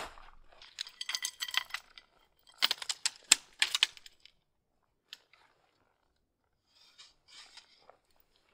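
Light metal gear clattering and clicking in two quick bursts, each about a second long, followed by a few faint ticks and scrapes.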